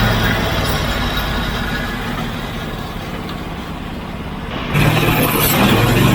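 Portable sawmill's gas engine running, easing down over the first few seconds, then picking up sharply about five seconds in.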